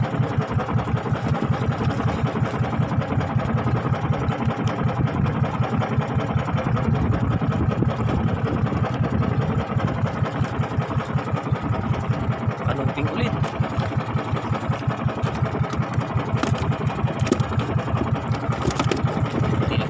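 A small engine aboard a wooden fishing boat running steadily at a low, even pace, its rapid regular pulses unchanging throughout.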